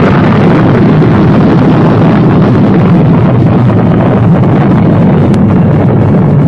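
Atomic bomb explosion sound effect: the sustained heavy rumble after the blast, loud and steady, with most of its weight low down.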